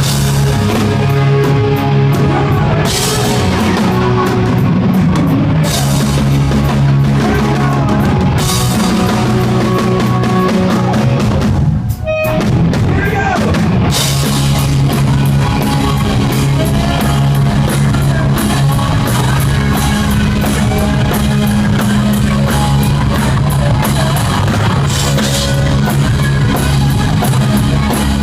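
Live rock band playing loud, with a drum kit and electric guitars. The band stops for a split second about twelve seconds in, then comes back in.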